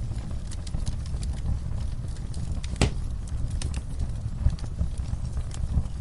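Wood fire in a fireplace crackling, with irregular sharp pops and snaps over a low steady rumble; one louder pop about halfway through.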